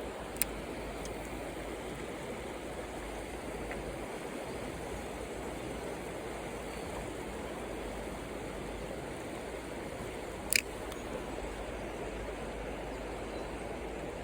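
Mountain stream water rushing steadily, with two brief sharp clicks, one about half a second in and a louder one about ten and a half seconds in.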